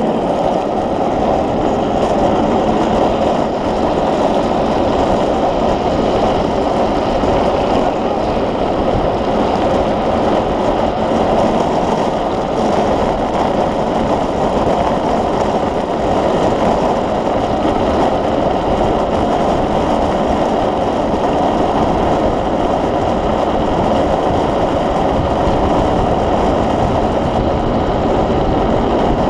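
Steady rush of wind on the camera and wheels rolling over asphalt as an unpowered speed trike runs downhill at race speed. It is a loud, even noise with no engine note.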